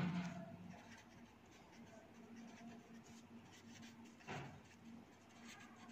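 Faint scratching of a red pencil writing on paper, with one brief louder stroke about four seconds in.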